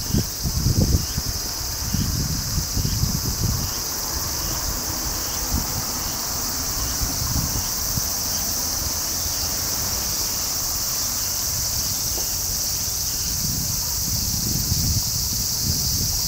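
Steady, high-pitched chorus of insects, with wind gusting on the microphone in the first few seconds and again near the end.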